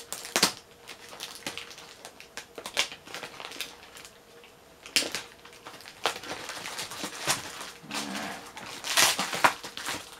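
Clear plastic wrap on a knife box crinkling and crackling as a knife slices and pulls it open. The crackles and rustles come unevenly and are loudest near the end.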